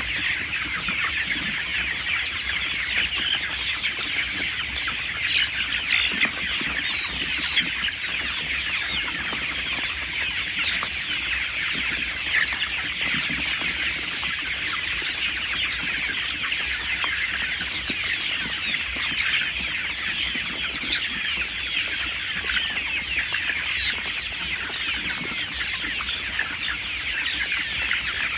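A flock of young village chickens, about five weeks old, peeping and cheeping together in a dense, unbroken chatter of short high calls.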